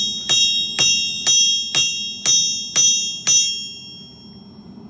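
Hammer blows on an anvil, about two a second, each leaving a bright metallic ring. Seven strikes, then the ringing fades out about a second after the last.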